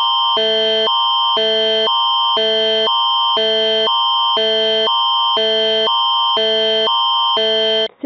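Canadian Alert Ready attention signal (the Canadian Alerting Attention Signal) announcing a broadcast emergency alert. A high tone is held steady while the chord beneath it flips between a lower and a higher pair of tones about every half second, for about eight seconds, and stops just before the end.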